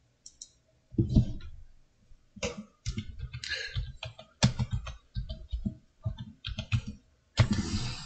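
Typing on a computer keyboard: a run of quick, irregular key clicks, with a louder burst about a second in and another near the end.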